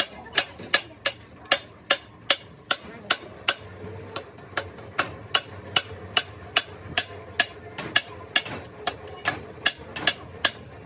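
Hammer blows on metal in a steady rhythm, about two to three sharp ringing strikes a second.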